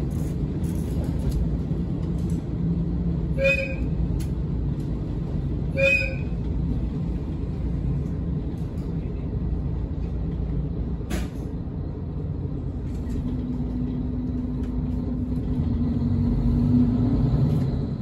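Diesel railcar running along the line, its engine and wheels rumbling steadily as heard from inside the cabin. Two short high beeps come a few seconds in, and near the end the railcar's horn sounds, held for several seconds.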